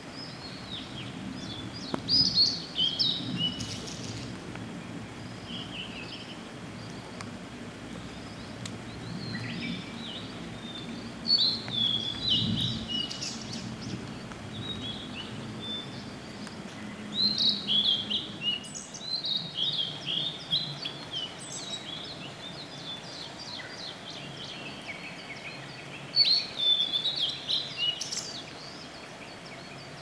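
A male blue-and-white flycatcher singing: four bouts of high, quick whistled song phrases separated by pauses of a few seconds, over a steady low background rush.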